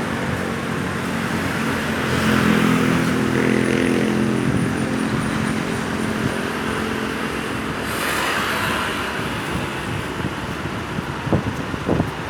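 Road traffic: an engine running steadily, with vehicles passing about two seconds in and again about eight seconds in.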